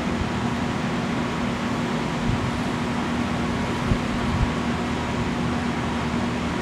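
Steady mechanical hum of engine-driven equipment running, with a constant low tone over a broad rush of noise. A few brief low thumps come through around the middle.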